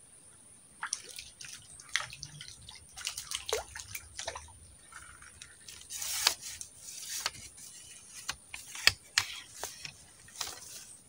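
Irregular drips, small splashes and clicks at the surface of a duckweed-covered swamp pool as a fish takes the bait, with a louder splashing rush about six seconds in.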